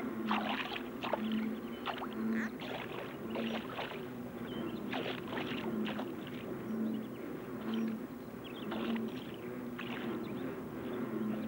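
A giant toad grappling with a frog it is swallowing in leaf litter: a run of short, wet rustles and splashes, over a low hum that swells about once a second.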